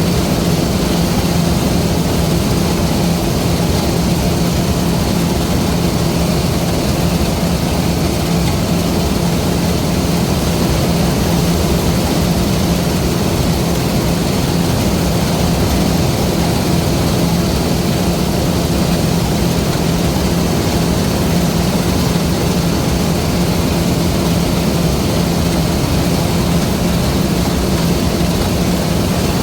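LOVOL RG130 EVO rice combine harvester running, a loud, steady diesel drone that holds one pitch throughout.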